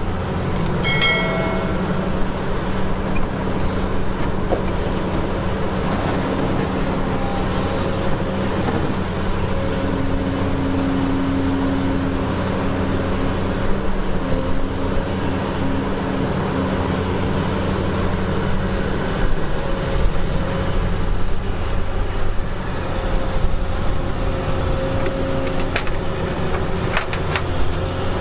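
Diesel engines of a crawler excavator and articulated dump trucks running at work: a steady deep engine drone, with a short metallic ring about a second in and a higher tone coming and going in the middle.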